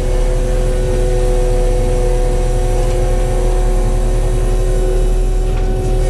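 Compact track loader's diesel engine and hydraulic drum mulcher running under load while grinding brush, heard from inside the cab: a steady low rumble with a steady whine over it.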